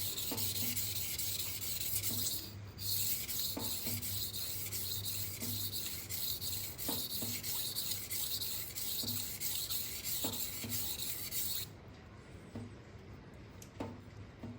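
Kitchen knife edge stroked back and forth on a 1000-grit Gritomatic whetstone, a steady gritty scraping with a light click now and then, stopping about three-quarters through. The blade is being worked alternately on each side to weaken and remove the burr.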